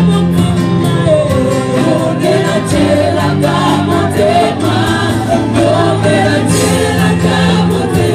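Church choir and lead singers singing a gospel worship song, backed by guitar and held low bass notes.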